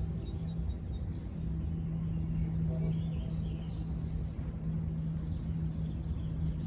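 Steady low rumble and hum of a distant diesel freight train, with birds chirping faintly.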